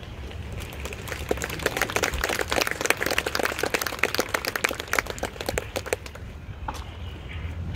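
Audience applauding: a crowd of many hands clapping that swells about a second in and dies away near the end.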